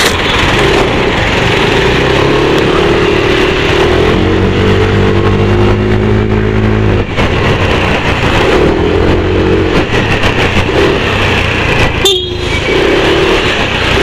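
Motorcycle ridden along a street, heard through a helmet-mounted external mic: loud, steady wind rush over the engine's drone. A deeper steady engine hum about four seconds in cuts off abruptly around seven seconds, and the wind rush briefly drops near the end.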